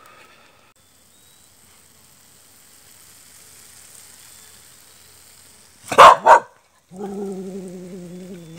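A dog barks twice in quick succession, sharp and loud, then gives a drawn-out, steady lower call lasting about a second and a half.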